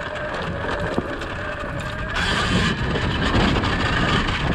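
Surron Ultra Bee electric dirt bike riding over a rocky dirt trail: its electric motor gives a steady whine for the first two seconds over the rattle of the chain and suspension and tyres on stones. About two seconds in there is a brief hiss, and then the knocking of the wheels over rocks gets louder.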